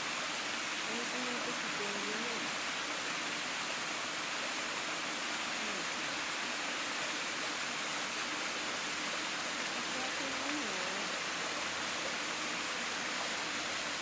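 Steady rush and hiss of a small waterfall and the shallow mountain stream below it, water running over rocks and gravel without a break.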